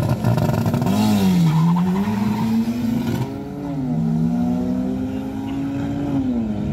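A race car's engine running at high revs. Its pitch drops and climbs back about a second in and again near four seconds in, holds steady in between, and falls away near the end.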